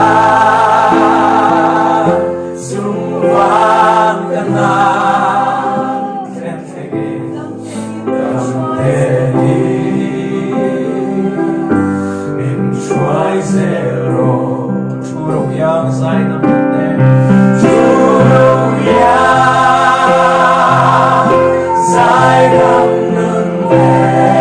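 Gospel song sung in Mizo, several voices singing held notes with vibrato over instrumental backing.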